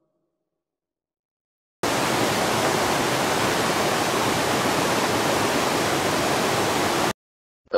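Waterfall roar: a steady, even rush of falling water that cuts in abruptly about two seconds in and cuts off suddenly near the end.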